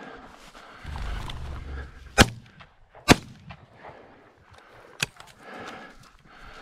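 Three shotgun shots during a quail hunt: two loud shots about a second apart, then a fainter third shot about two seconds later.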